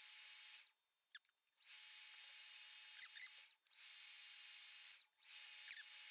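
Benchtop mill's spindle motor running with a steady high-pitched whine, in four stretches broken by short gaps, with a few light clicks.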